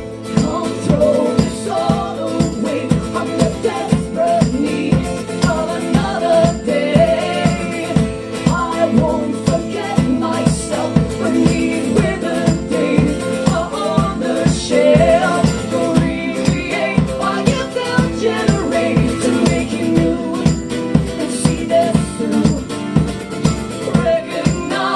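Live acoustic band music: guitar and mandolin over a steady kick beat with tambourine jingles, and a wordless vocal melody at times.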